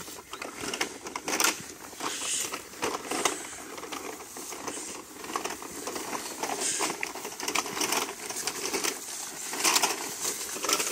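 A large coil of black polyethylene irrigation pipe being rolled over dry grass and paying out, with irregular crackling, rustling and clicking as the plastic coils rub and the grass is flattened.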